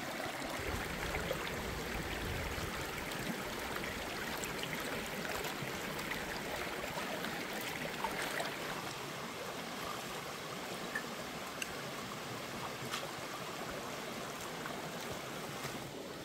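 Shallow stream running over rocks: a steady rush of water, a little quieter in the second half, with a few faint clicks.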